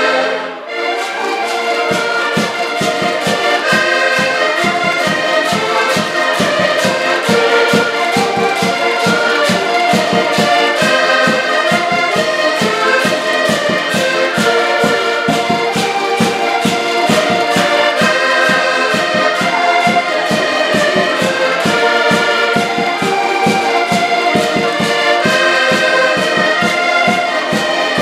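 An ensemble of accordions, mostly button accordions, playing a traditional Portuguese tune together, with sustained chords and melody over a steady rhythmic beat. It starts about half a second in.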